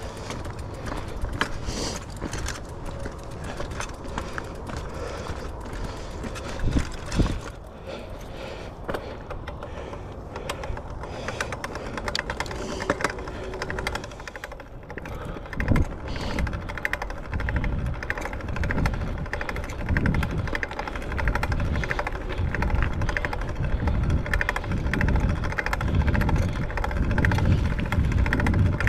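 Horse walking a trail, hooves clip-clopping, with many small clicks and heavy low thumps on the microphone that grow stronger from about halfway through.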